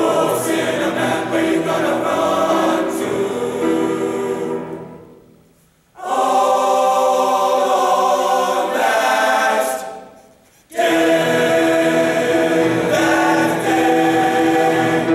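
High-school boys' choir singing sustained chords in harmony, in three phrases. The first two phrases fade into short silences, about five and ten seconds in, before the voices come back in together.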